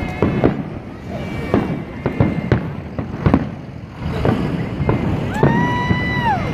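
Fireworks shells bursting overhead in an irregular run of sharp bangs. Near the end a long, held high-pitched tone sounds over them and falls away.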